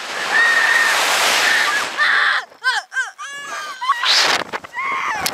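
Wind rushing over the ride-mounted microphone as a slingshot ride flings two girls through the air, with a long high scream over it. Short shrieks follow near three seconds in, then another gust of wind at about four seconds.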